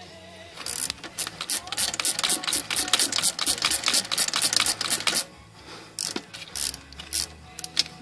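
Hand ratchet wrench clicking rapidly as it loosens engine bolts, in a long fast run of clicks lasting about four and a half seconds, then a few scattered clicks near the end.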